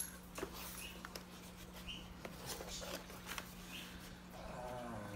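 Light rustling and scattered clicks of cardboard packaging being handled, over a faint steady hum. A few faint, short high squeaks come through now and then.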